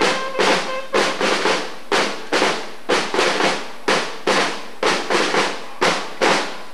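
Drums beating a steady march rhythm: sharp strokes in a pattern that repeats about once a second.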